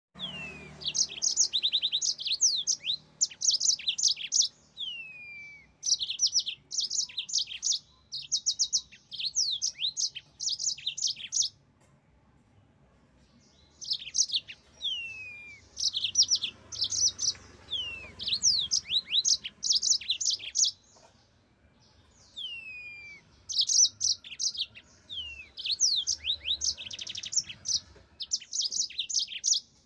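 Yellow-fronted canary singing: phrases of a second or two made of fast, high trilled notes and downward-sliding whistles, broken by two short pauses.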